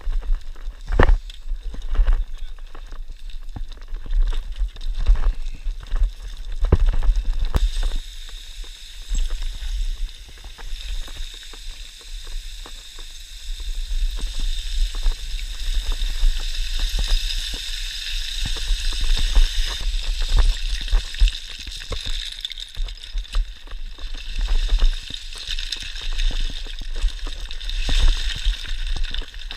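Boots crunching and sliding down loose rock scree, with stones clattering and a hiss of sliding gravel that grows stronger about halfway through, over a low wind rumble on the microphone.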